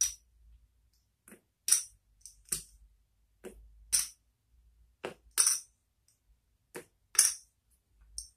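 Clay poker chips clicking as they are stacked and set down by hand: about a dozen short, sharp clicks and clacks, unevenly spaced.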